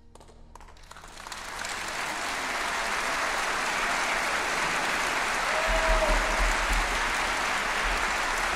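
Concert hall audience applauding at the end of a song. A few first claps come as the orchestra's last chord dies away, and within about two seconds they swell into full, steady applause.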